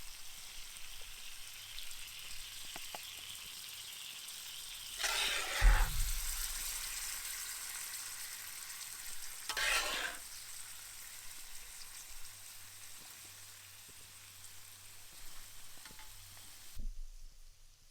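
Tandoori chicken and vegetables in yogurt sauce sizzling steadily in a large Muurikka pan over a campfire. There are two louder bursts of stirring or scraping in the pan, about five and ten seconds in. The sizzle drops away sharply near the end.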